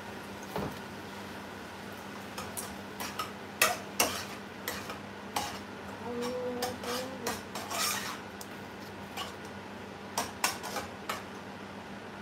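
Spatula scraping and clinking against a frying pan as a stir-fry is stirred: irregular scrapes and taps over a low sizzle.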